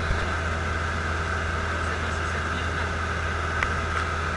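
Robin DR400 light aircraft's piston engine and propeller in flight, a steady drone heard inside the cockpit.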